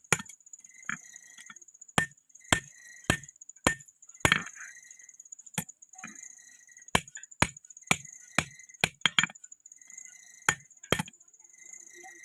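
Blacksmith's hand hammer striking metal on an anvil: about fifteen sharp blows at roughly two a second, with short pauses, several followed by a brief metallic ring.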